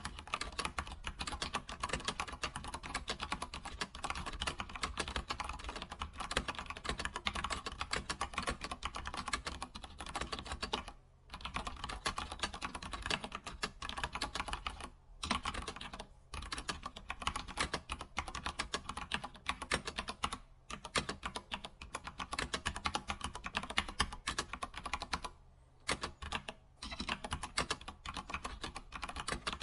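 Computer keyboard typing: a fast, steady run of keystrokes, broken by a few short pauses.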